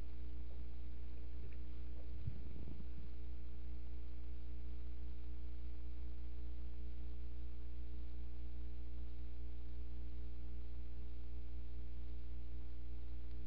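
Steady electrical mains hum from the chamber's audio system: a constant low buzz with several evenly spaced overtones. A few faint taps come about two to three seconds in.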